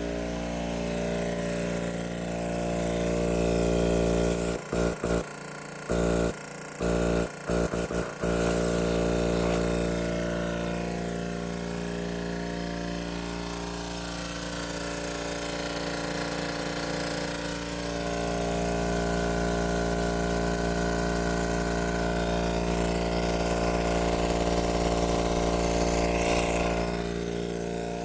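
Tuthill Kinney KVAC-33 rotary vane vacuum pump/compressor, driven by a 2 hp Leeson electric motor, running steadily with a loud, even hum. The sound breaks up briefly several times about five to eight seconds in.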